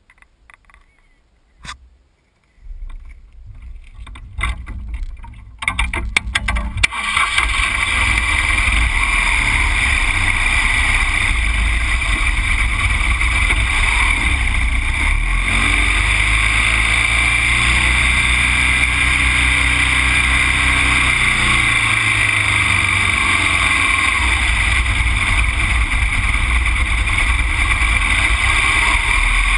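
A few handling clicks, then a road vehicle getting under way. From about seven seconds in, a steady loud rush of wind and road noise runs with the vehicle's engine underneath.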